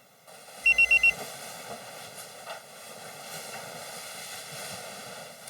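Four quick high electronic beeps about a second in, followed by a steady low hiss.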